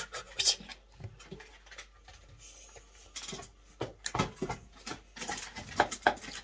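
A pet dog making a few short sounds among scattered clicks and knocks.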